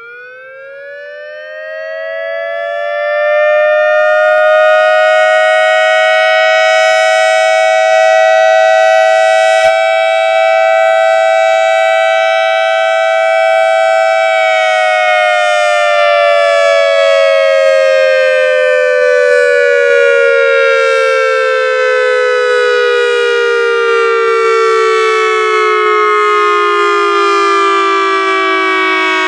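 ACA outdoor warning siren driven by an analog controller: it winds up to full pitch over about four seconds and holds a steady, loud tone. About halfway through, the pitch begins a slow, even fall that is still going at the end.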